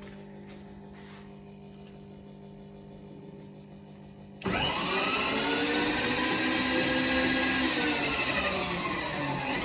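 Power feed motor on an RF-45 clone milling machine table: a faint steady hum at very slow feed, then about four seconds in it suddenly whines loudly at high speed. Its pitch rises and then falls, dipping briefly near the end before picking up again.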